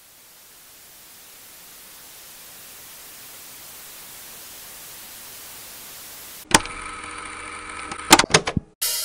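Television static hiss fading in and slowly growing louder. About two-thirds through it is cut off abruptly by sharp hits and ringing pitched tones, which drop out briefly near the end.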